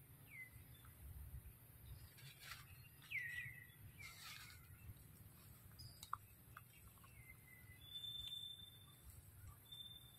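Faint forest ambience with a few short, falling bird chirps, the loudest about three seconds in, and a brief high, steady whistle about eight seconds in and again near the end.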